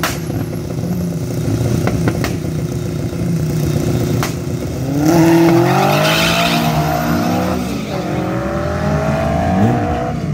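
Drag-racing car engines running at the starting line with a few sharp clicks, then launching about five seconds in. The revs climb hard, drop at a gear change a few seconds later and climb again.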